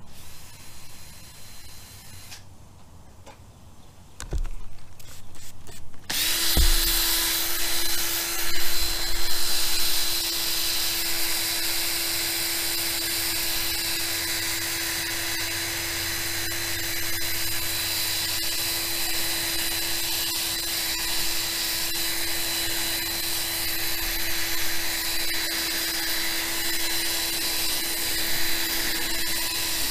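Electric drill driving a pad from a 3M headlight restoration kit on a plastic motorcycle windscreen. It starts suddenly about six seconds in after a low knock, then runs steadily at one speed.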